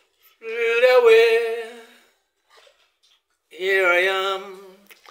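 A man singing unaccompanied: two long, wavering held notes of about a second and a half each, with a pause between.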